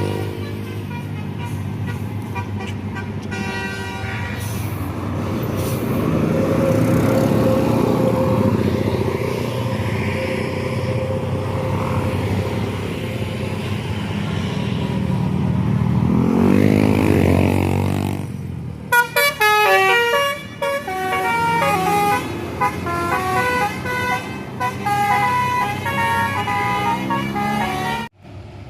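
Tour bus engine and road noise, then a telolet multi-tone bus horn playing a quick melody of stepped notes for about ten seconds, stopping suddenly near the end.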